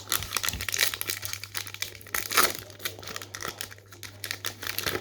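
Crinkling and tearing of a trading card pack's wrapper as it is ripped open by hand, a dense run of crackles loudest about halfway through.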